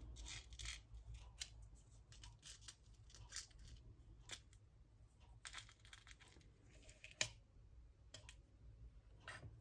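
Faint clicking and rustling of small sequins being sifted by fingertips in a small clear plastic tub, with one sharper click about seven seconds in.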